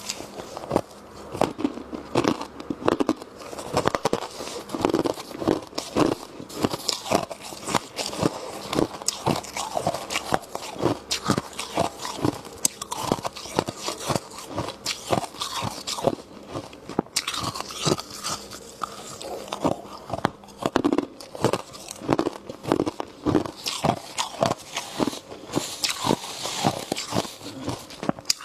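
Close-miked crunching and chewing of freezer frost and ice, with many sharp crunches in quick succession. Now and then comes a hissing rustle of a gloved hand scooping through the packed frost.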